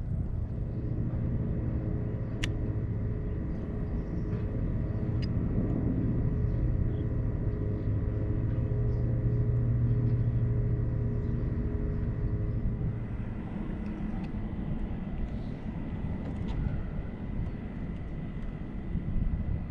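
A steady low engine hum, fading after about thirteen seconds.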